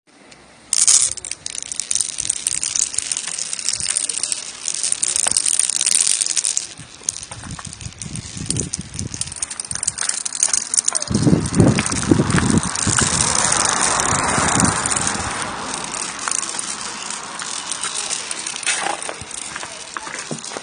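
Glass marbles rolling and clattering down a stone marble run, with many rapid clicks and a heavier rumble about halfway through.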